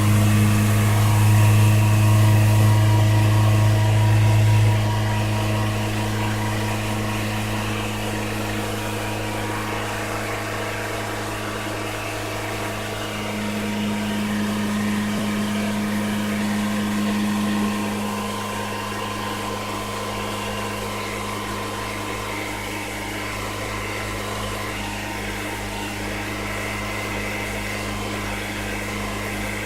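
2011 Toyota Corolla's four-cylinder engine running at a steady speed while warming up toward operating temperature, louder for the first few seconds and then quieter.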